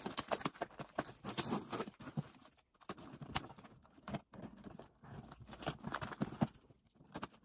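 Knife blade scraping and slicing along brown packing tape on a cardboard box, then the tape being pulled away: quiet, irregular scratching, tapping and crinkling.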